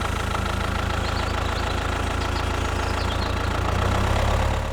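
Tractor engine idling steadily, a low rumble that swells slightly near the end.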